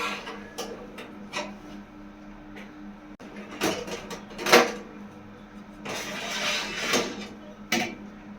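Cardboard packaging being handled: scattered clicks and rustles, a sharp knock about four and a half seconds in and a longer rustle about six seconds in, over a faint steady hum.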